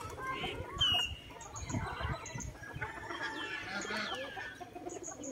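Chicken clucking among the scattered calls of a mixed flock of farmyard fowl and pigeons, with a few low thumps near the middle.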